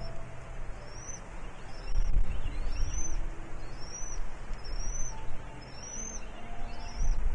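A bird calling a steady series of short, high, thin arched notes, about one a second, with a low wind-like rumble on the microphone that grows louder about two seconds in.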